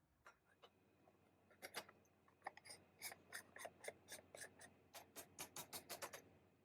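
A quick run of light, sharp clicks and taps, about three or four a second, starting a second or two in and stopping shortly before the end.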